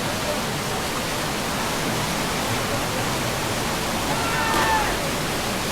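Steady, loud rush of a waterfall, with a faint short call about four seconds in.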